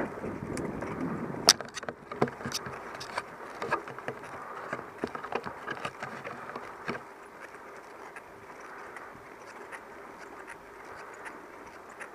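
Mountain bike rolling down a tarmac lane: a steady rush of tyre and wind noise with irregular sharp clicks and rattles from the bike jolting over bumps. The clicks are loudest about one and a half seconds in and die away after about seven seconds, leaving a quieter steady rush.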